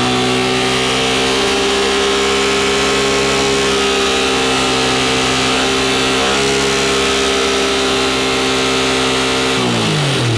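1980 Honda CX500's V-twin engine running steadily on its first start after the fouled, black spark plugs were replaced, then slowing as its revs fall away near the end.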